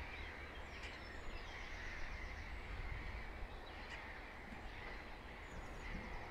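Wild birds calling and singing, faint, with scattered high chirps and a few short rapid trills, over a steady low background rumble.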